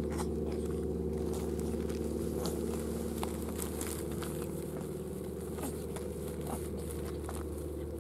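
Steady low mechanical hum throughout, with scattered light clicks and rustles of a plastic bag as cats nose and paw at it.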